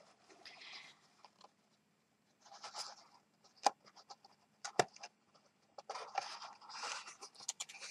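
Pink cardstock rustling and scraping in short spells as box flaps are folded and tucked inside, with two sharp taps near the middle.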